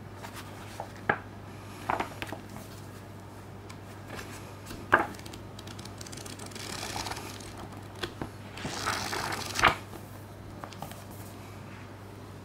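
Paper pages of a softcover storyboard booklet riffled and turned by gloved hands, rustling in two longer stretches past the middle, with several light taps and knocks of the booklet being handled and set down on a table. A steady low hum sits underneath.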